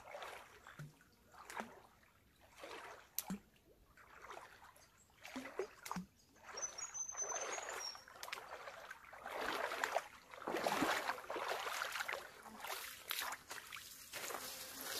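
Footsteps of a hiker wading through shallow water, each stride splashing, louder and more continuous as they come close in the second half.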